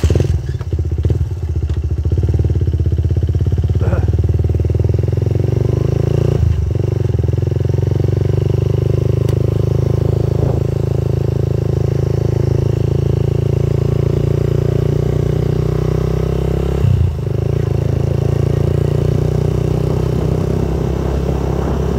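Motorcycle engine running steadily while riding along a road, with a brief drop in level about 17 seconds in.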